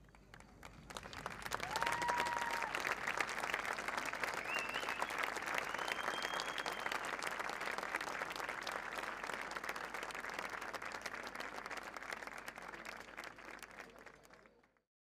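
Crowd applauding at the end of a show, swelling over the first couple of seconds, with a few short whistles, then slowly fading and cutting off just before the end.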